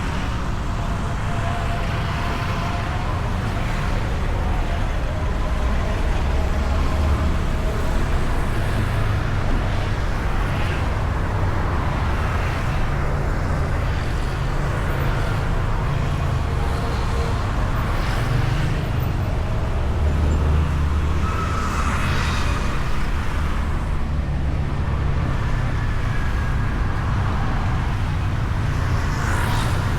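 Honda Beat scooter being ridden through traffic, heard from a camera mounted on the bike: a steady, loud low rumble of engine and road, with other vehicles passing now and then.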